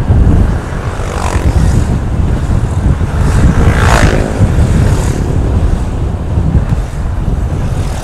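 Heavy wind buffeting on a riding motorcycle's microphone, with oncoming motorbikes passing close by: a short whoosh about a second in and a louder engine pass-by, falling in pitch, about four seconds in.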